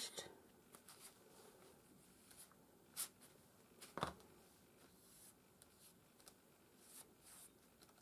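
Near silence with faint handling of paper and card on a table: soft rustles and two light taps, about three and four seconds in.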